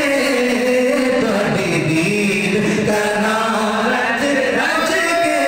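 A man singing a Punjabi naat into a handheld microphone, with long held notes that slide in pitch.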